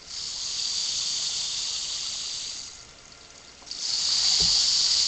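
A sound-effect prop making a rain-like hiss in two long stretches: the first lasts nearly three seconds, and the second starts near four seconds in. A faint knock comes during the second stretch.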